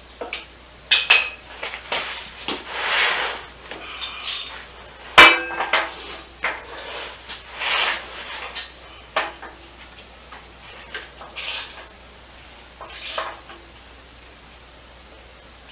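Hand tools clinking and scraping on metal while working at the joint of a Dodge 360 engine and 727 automatic transmission, in irregular clicks and short scrapes. A sharp, ringing metal clank about five seconds in is the loudest sound.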